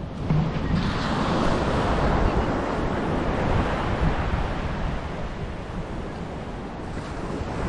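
Surf breaking and washing up the beach, a swell of rushing water about a second in that slowly eases off, with wind buffeting the microphone.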